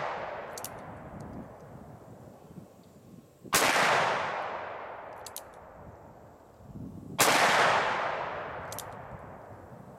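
A .357 Magnum single-action revolver with a 5.5-inch barrel is fired twice, about three and a half seconds apart. Each sharp report echoes and dies away over a few seconds, and the tail of an earlier shot fades out at the start. Faint clicks come between shots as the hammer is cocked back for the next one.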